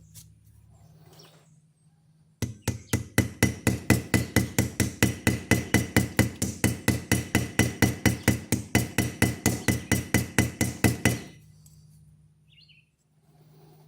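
Small hammer peening over a handle pin on a pocket knife: a run of quick, even light taps, about five a second, lasting about nine seconds, with a faint metallic ring. The strikes swell the pin's end so it cannot move out of the bone handle.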